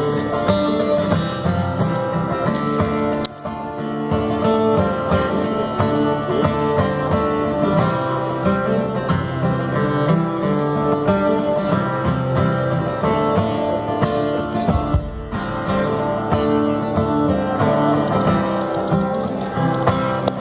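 Live band playing an instrumental passage led by guitars, recorded from the audience on a mobile phone.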